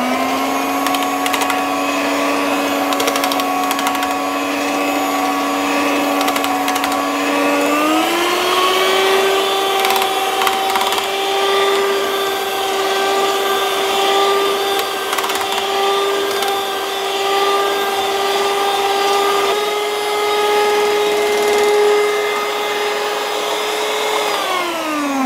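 Electric mixer with whisk beaters whipping mashed potatoes with milk: the motor runs with a steady whine, steps up to a higher speed about eight seconds in, then winds down near the end.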